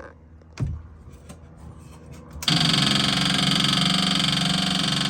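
A click, then about halfway in the dune buggy's electric fuel pump starts with a loud, steady buzz and keeps running: the pump is getting power through the newly wired harness.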